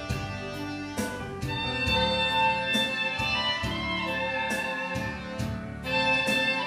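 Soprano and alto saxophones playing a slow melody together in held notes over an accompaniment with a steady beat.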